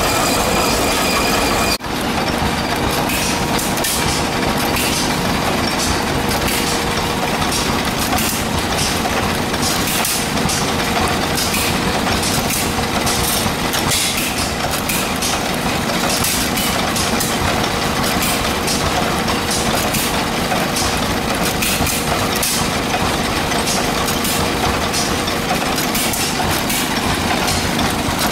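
Single-cylinder stationary gas engines running together, with sharp exhaust pops at uneven intervals over a steady mechanical clatter. For the first two seconds a belt-driven threshing machine runs with a steady whine, cut off abruptly.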